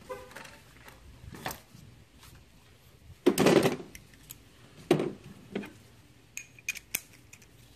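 Metal hand tools and parts clinking and clattering in a car's engine bay as a bolt is refitted. There is a louder rattle about three seconds in and a few sharp, ringing metallic clinks near the end.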